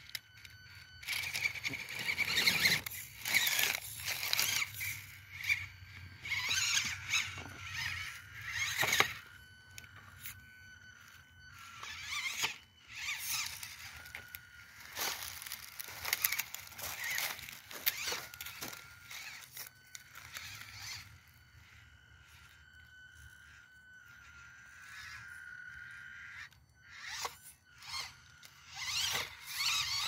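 Axial SCX24 1/24-scale RC rock crawler with an Injora 66T brushed motor crawling over logs: a thin, steady, high motor whine, broken again and again by scraping and crunching as the tyres and chassis grind on bark and dry leaves. The scraping is loudest in the first ten seconds and again near the end.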